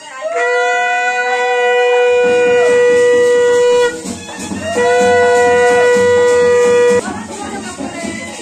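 Conch shell (shankha) blown in two long, steady blasts, the first about three and a half seconds and the second about two seconds, ending about seven seconds in. A low steady noise runs underneath from about two seconds in.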